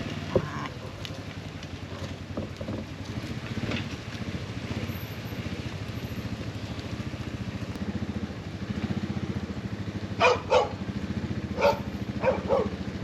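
An engine idling steadily, with a dog barking about five times in quick short barks near the end.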